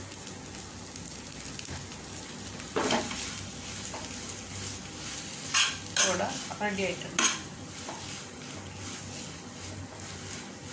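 A spoon stirring and mashing potato masala in a nonstick frying pan, scraping and knocking against the pan several times, over a steady light sizzle of the frying mixture.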